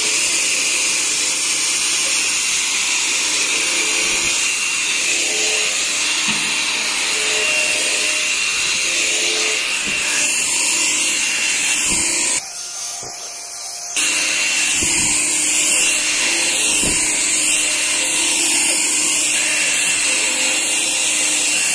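Electrolux Ergorapido cordless stick vacuum running steadily with a high whine as its floor nozzle is pushed over a carpet mat. A little past the middle it drops to a quieter hiss for about a second and a half, and there are a few soft bumps from the nozzle.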